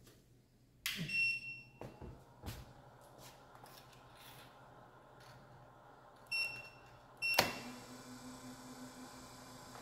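Electronic beeps from the remote-controlled relay setup as the key-fob remote is used, one about a second in and a shorter one around six seconds, with a few clicks between. Near the end a contactor clunks shut and the DC motor on the wheel-driving test bench starts, running with a steady whirring hum.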